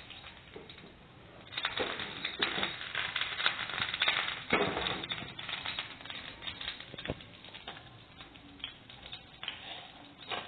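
Butter sizzling in a hot nonstick frying pan, with fast crackling pops that pick up about a second and a half in and ease off in the second half.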